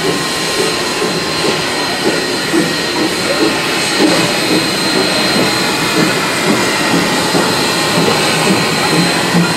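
Narrow-gauge steam locomotive, Rio Grande Southern No. 41, rolling slowly past at close range, its steam hissing steadily.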